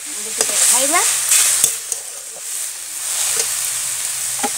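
Sunsunia greens sizzling as they are stir-fried in a steel kadhai, with a steady hiss and the metal spatula scraping and knocking against the pan a few times.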